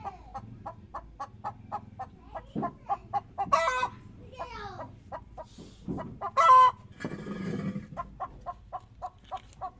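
Hen's egg song: a run of quick clucks, about three to four a second, broken twice by a loud drawn-out squawk. It is the cackle a hen gives after laying an egg. A brief rustling noise follows the second squawk.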